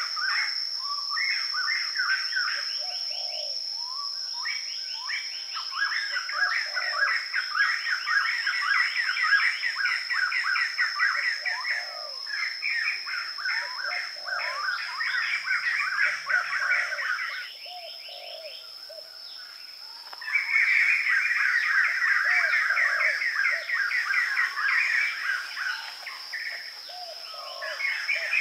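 Birds chirping in long runs of rapid, repeated notes, with a quieter pause of a couple of seconds past the middle, over a steady high whine.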